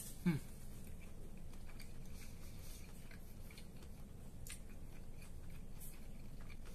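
A man chewing a mouthful of chicken sandwich with his mouth closed, with faint scattered wet clicks of chewing. Just after the start there is one short hum from his throat that falls in pitch.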